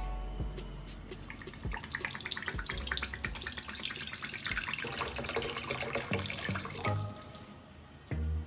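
Water poured in a steady stream into a deep nonstick pot, splashing as it fills. The pouring starts about a second and a half in and stops about a second before the end, followed by a short knock.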